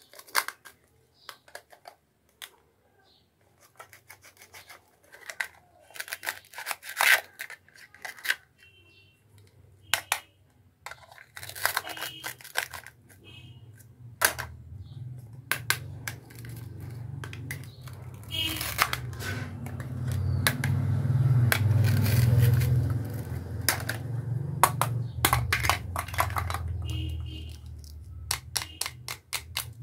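Plastic toy fruits being cut with a plastic toy knife on a plastic cutting board: sharp clicks and taps of hard plastic, with short rasping rips as the Velcro-joined halves are pulled apart. A low background rumble swells in the second half and fades near the end.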